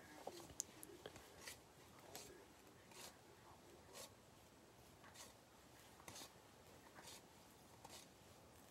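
Near silence, with faint soft rustles and light ticks about once a second as Topps baseball cards are flipped through and handled.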